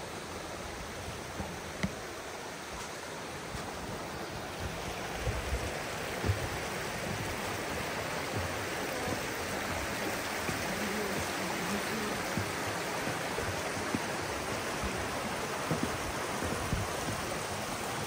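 Forest brook rushing and splashing over rocks and small cascades, a steady rush that grows a little louder partway through. A few soft thuds of footsteps on the wooden footbridge's planks sound over it.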